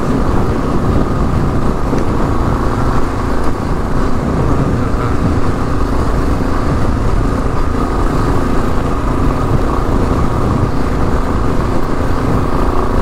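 2022 Kawasaki KLR 650's single-cylinder engine running steadily under way through a LEXX slip-on exhaust, the bike ridden at an even pace on a dirt trail.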